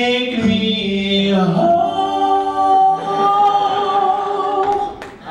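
A group of men singing together in harmony: a short moving phrase, then a long held chord that cuts off near the end.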